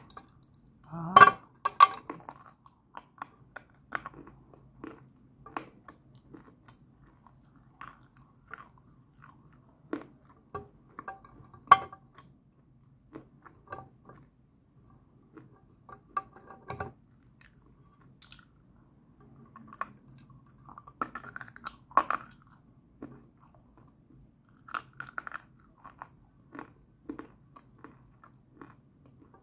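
A person bites into a hard, dry grey chunk of edible chalky mineral and chews it. A loud crunchy bite comes about a second in, followed by scattered crisp crunches and crackles as it is chewed.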